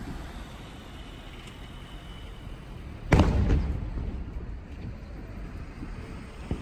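A firework aerial shell bursting: one loud boom about three seconds in, its rumble dying away over about a second, over steady low background noise.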